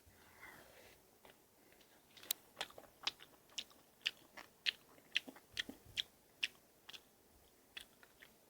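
Close-up crunchy chewing of food into the microphone: a dozen or so sharp crunches, roughly two a second, starting about two seconds in and stopping near the end.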